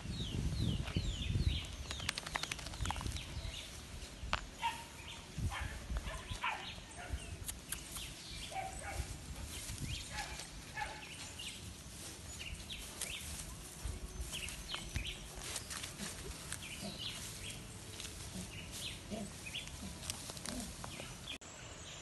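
Small birds chirping and calling again and again, with rustling and handling noise in the first couple of seconds.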